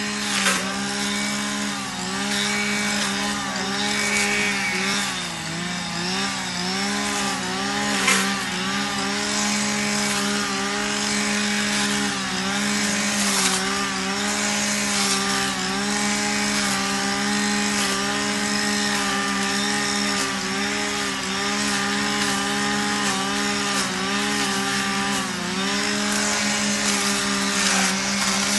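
Chainsaw running steadily at high speed, its pitch sagging briefly again and again as it takes load in the wood. A sharp knock about eight seconds in.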